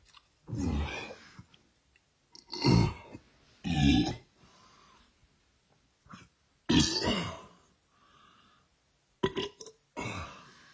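A series of loud, throaty burps, about six, each lasting half a second to a second with short pauses between them.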